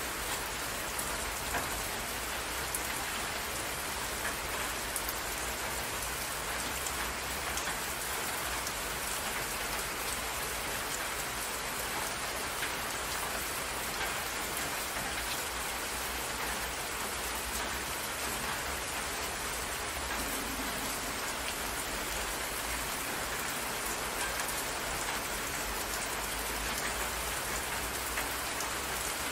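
Steady rain: an even wash of countless small drops splashing, holding the same level throughout.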